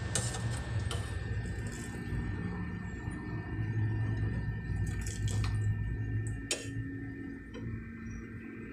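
Pot of chicken tinola broth bubbling as it simmers on the stove, over a steady low hum, with a few light clicks.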